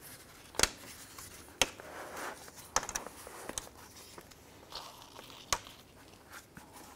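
Rubber hood-to-grille gasket seal being peeled off the plastic lock tabs of a grille: about five sharp clicks as it pops free of the tabs, the loudest just after the start, with scraping and rubbing between.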